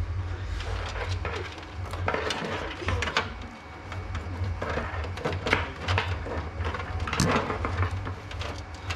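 Irregular clicks, knocks and rustling from power-supply cables and parts being handled and fitted inside a desktop PC case, over a steady low hum.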